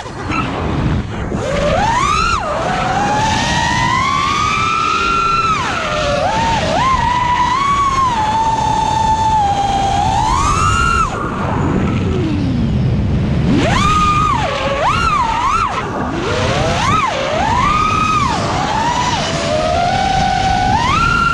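FPV racing quadcopter's brushless motors whining, the pitch swooping up and down constantly with the throttle.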